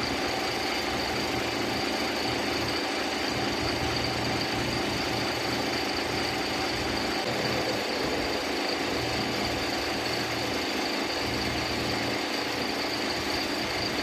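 An engine idling steadily, with a faint high whine running over it.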